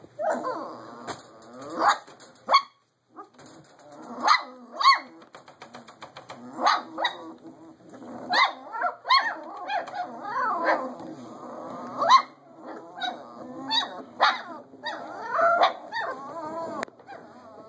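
A litter of five-week-old Belgian Malinois puppies yipping, whining and barking over one another, with sharp high barks every second or two and a brief lull about three seconds in.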